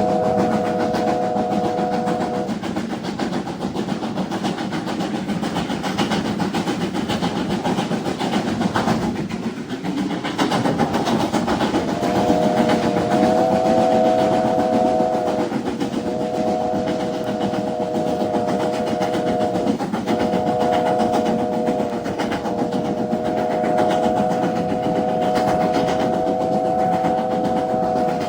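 Heritage steam train running, with a steady three-note chord held for long stretches over the running noise. The chord drops out a couple of seconds in, returns about twelve seconds in, and breaks briefly twice after that.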